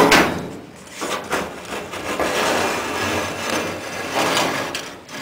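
A straightedge knocking down onto the sheet-metal cab roof of a 1963 Chevy C-10 pickup and then rubbing along it, being laid across the panel to check a dent.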